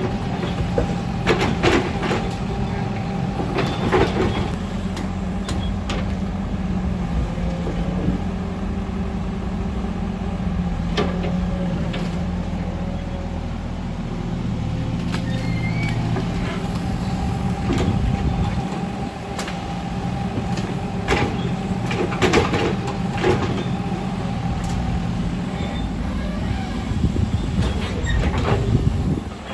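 Diesel engine of an old Cat hydraulic excavator running steadily under load, its pitch shifting as it digs wet soil and loads a dump truck. Scattered knocks and clanks of the steel bucket and dropped soil come at intervals, several in quick succession a little after twenty seconds.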